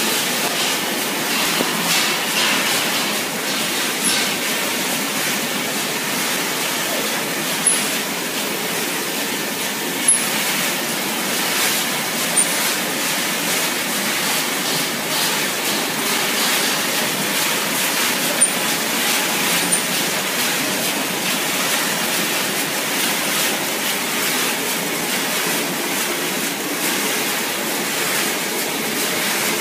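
Steady machinery noise of a running dog food production line, from electric motors, conveyors and fans, with a few sharp clicks scattered through it.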